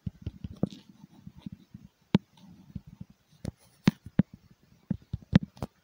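Footsteps on a leaf-strewn dirt trail: soft low rustling with irregular sharp clicks, several in quick succession near the end.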